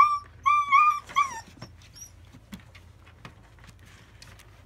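A German Shepherd puppy whining: about four short, high whines in the first second and a half, then faint clicks and scuffles of puppies moving about.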